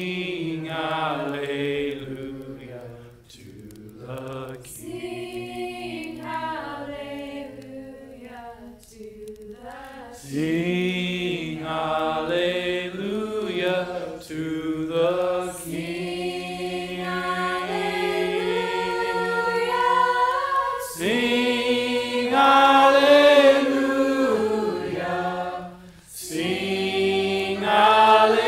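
Voices singing a gospel hymn together, with long held notes. The singing grows louder and fuller about ten seconds in.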